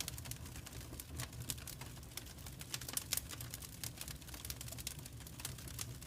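Wood fire crackling in a fireplace: a steady run of small, sharp snaps and pops, a few louder ones about three seconds in, over a low steady rumble.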